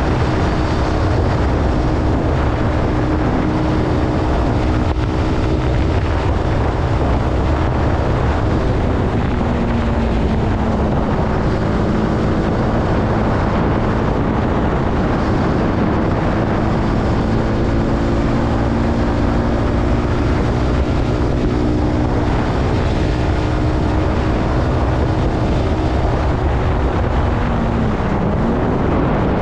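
Zontes C125 125cc motorcycle engine running while riding, with wind noise on the microphone. The engine pitch drops about ten seconds in, and near the end it dips and rises again.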